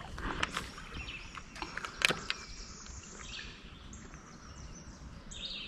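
A few sharp knocks and clicks in the first two and a half seconds, the loudest about two seconds in, then faint birdsong and insect calls over quiet river surroundings.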